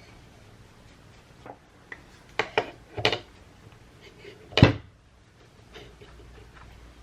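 A series of sharp knocks and clatters of hard objects being handled, several close together in the middle and one loudest knock about four and a half seconds in.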